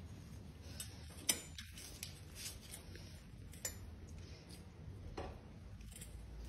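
A few sharp clicks over a low, steady background rumble, the loudest about a second in.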